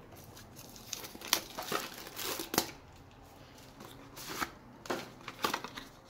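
Plastic shrink-wrap and cardboard packaging of a Magic: The Gathering prerelease pack crinkling and rustling as it is unwrapped and its box flap pulled open, in a series of short, irregular scratchy rustles.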